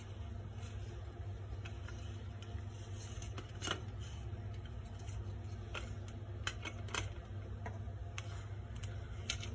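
A kitchen knife slicing through soft steamed chana dal pitha and tapping against a stainless steel plate: a few light, sharp clicks at uneven intervals over a steady low hum.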